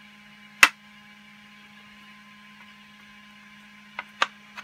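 Steady low electrical hum, broken by one sharp click of hard plastic about half a second in and two lighter clicks near the end as a 3D-printed plastic utility arm is handled.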